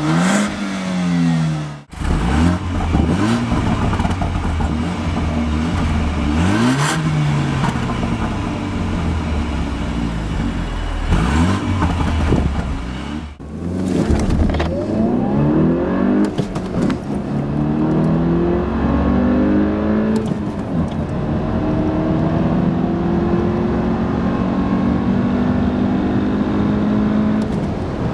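BMW 328i F30's 2.0-litre turbocharged four-cylinder engine revving up and down, then accelerating hard at full throttle. In the second half the engine pitch climbs and drops back at each upshift several times, the last gear pulling long and slowly.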